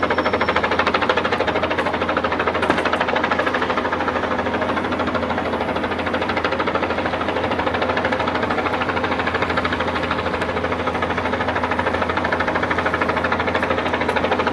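Helicopter flying overhead: a steady rotor and engine drone with a fast, even pulse.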